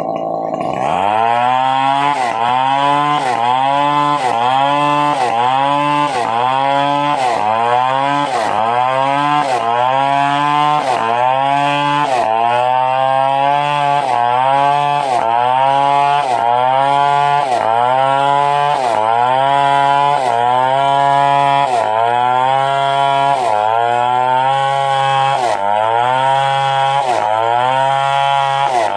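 Stihl 070 two-stroke chainsaw cutting at high revs, its pitch sagging under load and climbing back about once a second, with the saw coming up to speed about half a second in.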